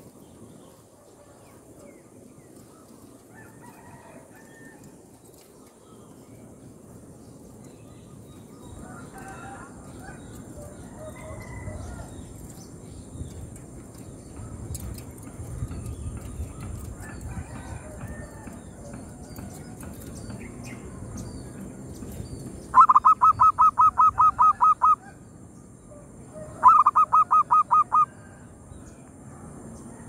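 Zebra dove (perkutut) calling: two loud bursts of rapid, evenly spaced cooing notes, about seven a second and each about two seconds long, in the last third, with fainter calls earlier. A faint steady high hiss runs underneath.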